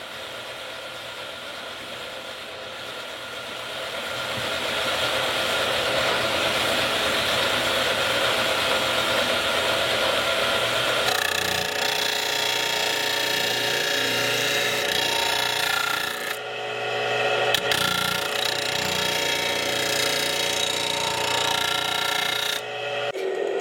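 A power tool running: a noisy whir that builds over the first few seconds, then a steadier pitched whine with a few short breaks and clicks.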